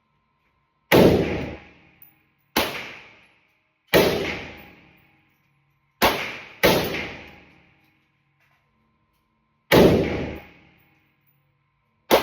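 Gunshots from an AR pistol in 5.56: seven single shots at uneven intervals, two of them in quick succession, each followed by a ringing decay of about a second.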